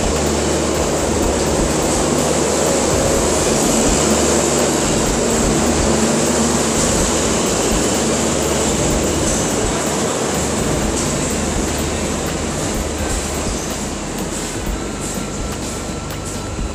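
Broad-gauge passenger train of new INKA coaches rolling slowly past, steady rumble of wheels and coaches, with wheel clicks coming in over the last few seconds.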